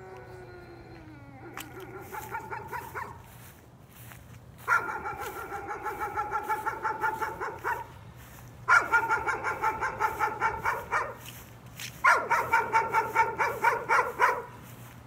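A small dog barking in rapid runs of about three seconds, several barks a second, with short pauses between the runs. It opens with a call that drops in pitch.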